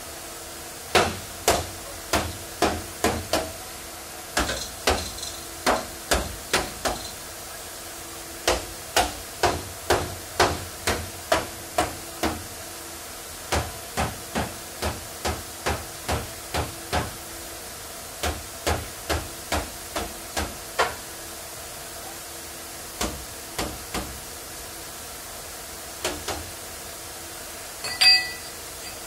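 Hammer blows on the sheet-metal rear quarter panel of a Suzuki car, struck in runs of quick strikes about two a second with short pauses, as the dented panel is worked straight while held under tension by a chain puller. Near the end comes one louder, ringing metallic clank.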